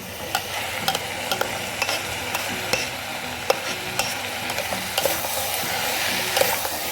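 Chopped tomatoes and onions frying in hot oil in a pan, a steady sizzle, while being stirred, with scattered clicks and scrapes of the utensil against the pan.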